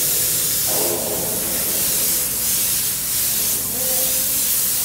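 Hand-held spray gun hissing steadily as it sprays a heat-tint-removing pickling and passivating liquid onto stainless steel weld seams. The hiss swells slightly a few times as the gun sweeps.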